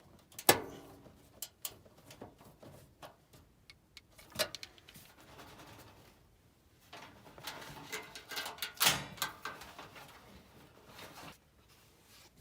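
Work noises inside a gas furnace cabinet: a sharp metal knock with a brief ring about half a second in, then scattered clicks, and a stretch of clicking and rustling of parts and tools later on.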